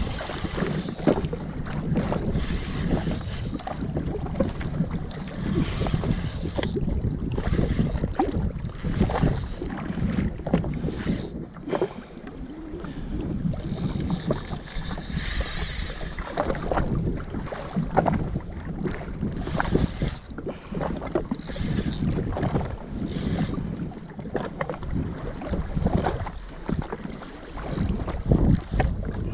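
Wind buffeting the microphone over water noise around a jet ski at sea, uneven and gusty, with a stronger gust of hiss about halfway through.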